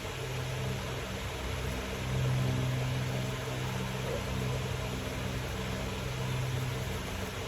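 Electric fan running steadily: a constant motor hum under an even airy hiss.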